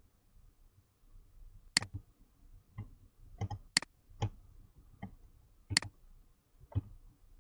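Computer mouse clicking about eight times at irregular intervals, short sharp clicks as objects are selected and a line is drawn in a whiteboard program.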